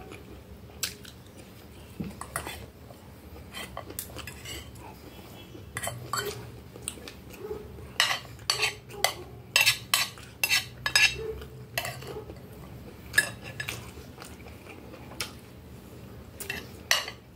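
Metal spoon and fork clinking and scraping against a glass plate while food is scooped up. The sharp clinks come now and then, with a quick run of them about halfway through and a few more near the end.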